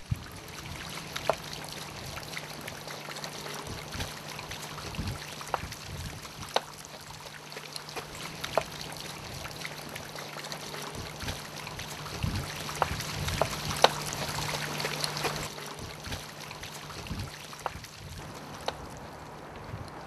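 Water running from a public drinking fountain, with scattered sharp clicks and a steady low hum underneath.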